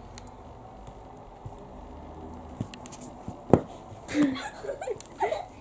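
Two long-haired cats play-fighting on a wooden parquet floor: faint scuffling and light taps, then one sharp thump a little past halfway. A voice comes in over the last second and a half.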